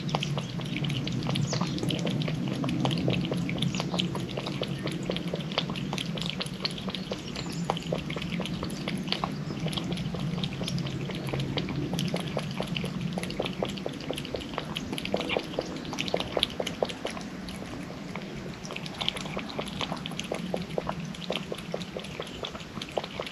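A cat lapping water from a bowl: a fast, continuous run of small wet clicks from its tongue.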